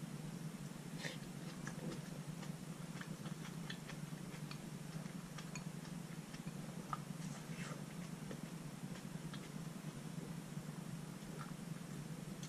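Faint eating sounds: wooden chopsticks clicking lightly against a glass bowl as soft cabbage is lifted from malatang broth, with small mouth sounds of eating. A steady low hum sits underneath.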